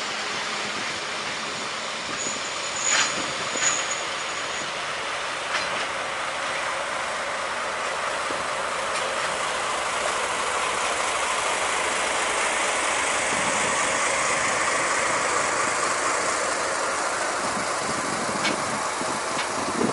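DE10 diesel-hydraulic locomotive running past at low speed, followed by container wagons rolling by with wheel and rail noise that grows louder toward the middle. About three seconds in there is a thin high squeal and two sharp clacks.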